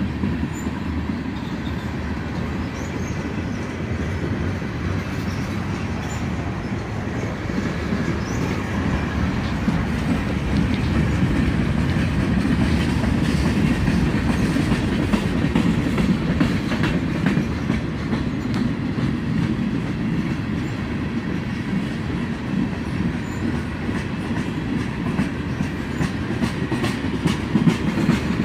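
A long freight train of railroad cars rolling slowly past, with a steady rumble and the clickety-clack of wheels over rail joints.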